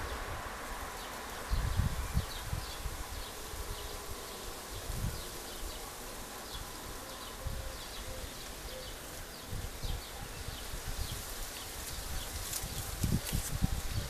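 Outdoor garden ambience: small birds chirping, short high calls repeating about once a second and brighter, higher chirps near the end. A passing vehicle fades out at the start, and a few low thumps break in, around two seconds in, at five seconds and near the end.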